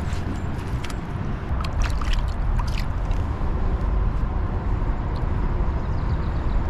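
Creek water sloshing and gurgling over a steady low rumble, with a quick run of short, sharp splashes about two seconds in.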